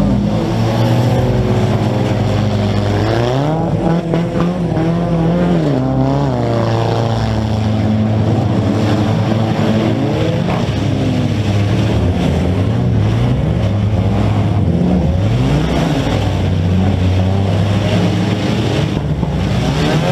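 Several compact demolition derby cars' engines revving at once, loud and continuous, with their overlapping pitches climbing and dropping again and again as the cars accelerate and back off in the mud.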